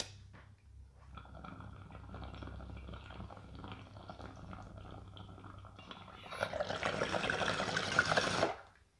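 Water in a glass beaker bong bubbling as smoke is drawn through it, soft and steady at first, then louder and faster from about six seconds in. It stops suddenly near the end.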